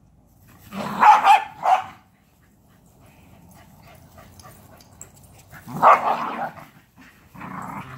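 Two small dogs, an adult and a puppy, barking as they play. A quick run of barks comes about a second in, another round near six seconds, and more start just before the end.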